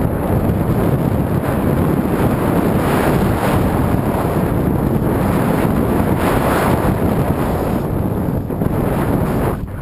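Heavy wind buffeting the microphone of a camera carried fast down a powder-snow slope, mixed with the rushing hiss of snow under the rider, which swells now and then with the turns.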